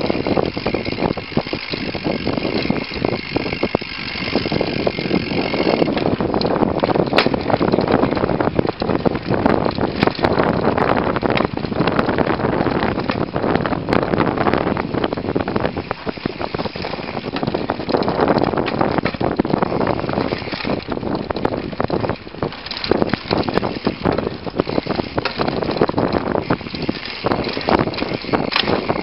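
Mountain bike riding a dirt forest trail, heard through a camera mounted on the bike: steady tyre and trail noise with frequent rattles and knocks as the bike hits bumps.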